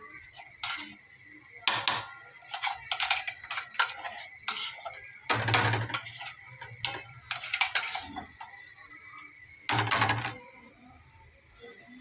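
Stainless steel mixer-grinder jar being tapped and scraped out to empty thick ground batter onto a steel plate: an irregular run of metallic knocks and clatters, loudest about halfway through and again near the end.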